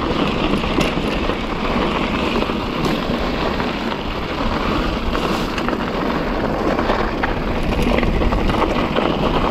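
Mountain bike being ridden over a rough dirt trail, heard from an action camera mounted with it: a steady rumble of tyres and rattling of the bike, with wind on the microphone. Scattered clicks and knocks from the bike's parts run through it.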